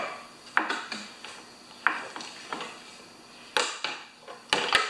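A few sharp knocks and clicks of a hard plastic engine shroud with its recoil starter being worked loose and lifted off a small Briggs & Stratton mower engine, with a quick double knock near the end.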